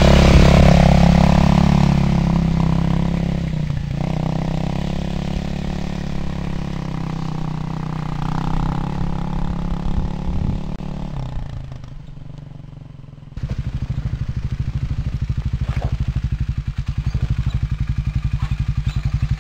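Kawasaki KLX250S dirt bike's single-cylinder four-stroke engine with an FMF exhaust, revving as it pulls away close by, then fading as the bike rides off up the trail. About two-thirds of the way through, the sound cuts to a motorcycle engine running steadily at low revs with an even pulsing beat.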